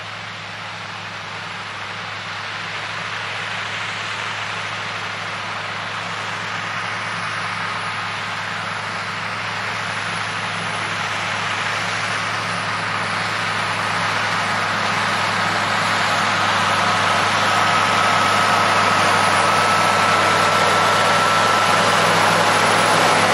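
Steiger Cougar tractor's Scania V8 diesel engine working under load pulling a cultivator, growing steadily louder as it approaches and passes close. A high steady whine rises out of the engine sound in the second half.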